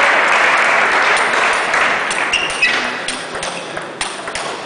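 A wash of applause fading away over the first couple of seconds, then the sharp, irregular clicks of a table tennis ball striking bats and table during a rally.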